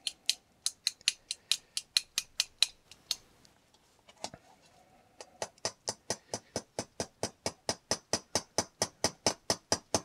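Small watch hammer tapping a pin back out through a gold ST Dupont Linge lighter, the pin having been installed backwards: light, sharp metallic taps at a steady pace of about four a second, pausing for about two seconds midway before resuming.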